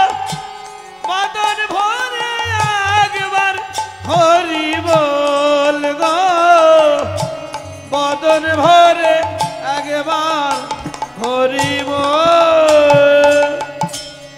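Bengali devotional kirtan music: a melodic line that slides between held notes, over a steady pattern of hand-drum strokes and small hand cymbals.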